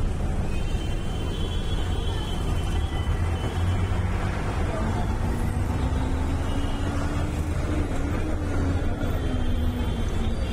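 Steady low rumble of a moving bus, engine and road noise together, with an engine tone that slowly rises and then falls again past the middle.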